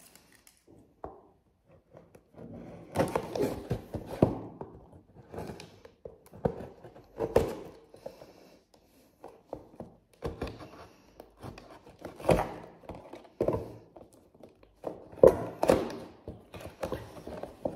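Irregular thunks and rustles of small objects being handled and set down, with some crinkling of plastic packaging.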